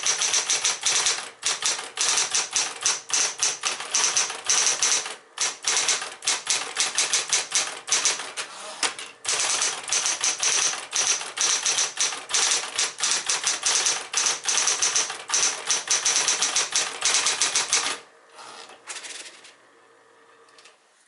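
Smith-Corona Corona Seventy electric portable typewriter being typed on quickly: a dense, rapid clatter of key strikes, broken by short pauses about 5 and 9 seconds in. The typing stops about 18 seconds in, leaving a much quieter steady hum.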